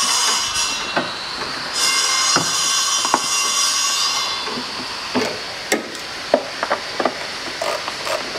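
Scattered short plastic clicks and knocks from a new front wheel-arch liner being worked into place, with a hand screwdriver catching the first self-tapping screw into it. A steady hiss underlies them throughout.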